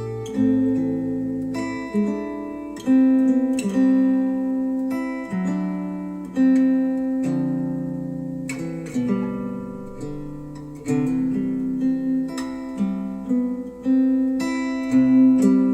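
Instrumental music: an acoustic guitar piece of plucked notes and chords, each starting sharply and dying away, played back through Wharfedale Denton 80th bookshelf speakers.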